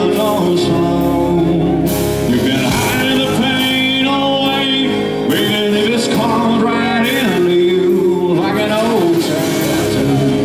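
A man singing while strumming an acoustic guitar, a solo live song performance.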